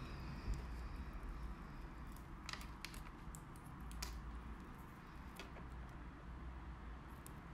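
Faint scattered clicks and taps of a plastic nail tip and a nail-art stick being handled as the tip is pressed onto blue tack on the stick, over a low steady hum.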